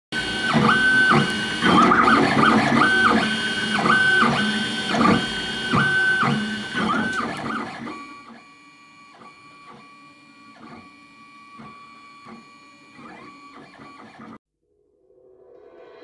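3D printer stepper motors running, a pitched whine that steps up and down and starts and stops as the print head moves, with mechanical clatter underneath. About halfway through it drops much quieter to a steadier hum with soft regular ticks, then cuts off abruptly near the end.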